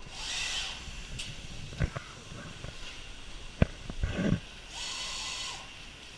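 Television assembly-line noise: a short hiss, then a few sharp knocks and a low clunk, then a second hiss lasting under a second.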